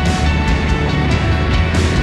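Background music, an instrumental passage with steady tones and regular cymbal or drum strokes.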